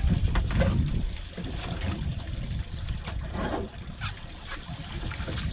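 Wind rumbling on the microphone over water lapping and sloshing around an upturned sailing dinghy; the rumble is strongest in the first second.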